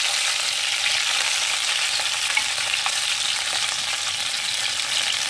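Pork pieces sizzling in hot lard in a glazed clay cazuela, a steady frying hiss, while a metal spoon stirs the meat with a few faint clicks.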